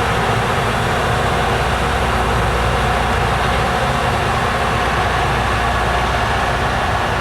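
Amtrak passenger train rolling past at speed: a steady rush of wheels on rail with a low rumble underneath.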